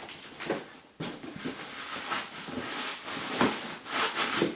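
Rustling and handling of packaging and tripod stand parts being pulled from a box, with a few light knocks.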